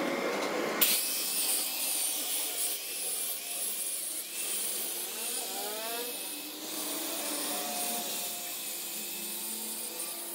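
Handheld electric angle grinder with an abrasive disc grinding a steel part held in a vise: a steady rasping grind with a faint wavering whine, starting about a second in.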